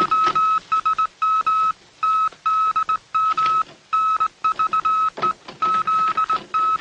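Morse code sent as a beeping tone: one steady high pitch keyed on and off in short dits and longer dahs, with brief gaps between letters.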